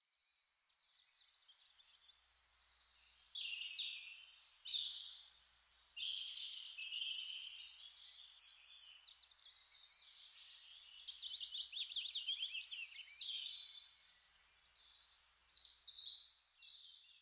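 Several songbirds singing over one another, a chorus of chirps, warbles and trills that fades in over the first seconds, with a fast run of quick repeated notes a little past the middle.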